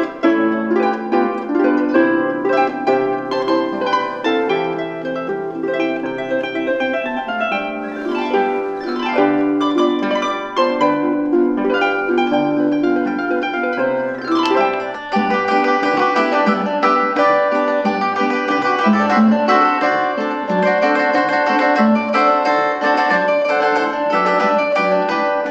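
Instrumental music with plucked notes playing from a HOTT portable CD player's small built-in speaker, recorded with the mic pointed at it. About 15 seconds in, the music changes to a different track. The playback sounds fine for its size, not tinny but not boomy either.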